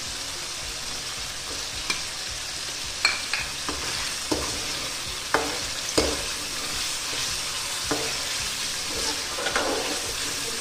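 Mutton sizzling as it fries in oil in a metal karahi, with yogurt just stirred in. A metal spoon knocks and scrapes against the pan about ten times at irregular intervals.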